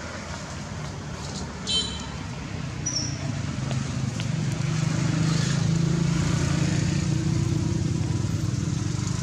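A motor vehicle's engine running nearby, a low drone that grows louder about halfway through. A brief high squeak sounds just under two seconds in.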